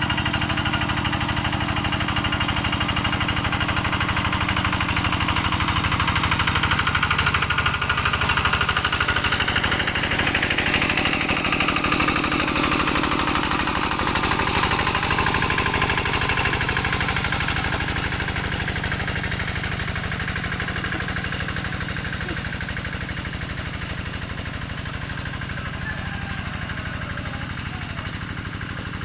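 Rice-paddy plough tractor's engine running steadily with an even rapid chugging, growing gradually quieter over the last third.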